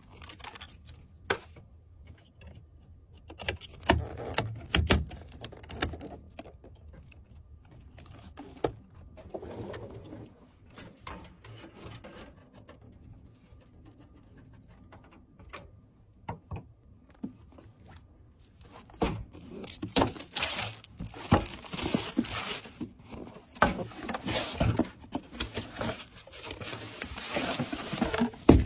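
Hands handling PC parts and packaging: scattered clicks, taps and scrapes, then from about 19 s on a busy stretch of rustling and crinkling.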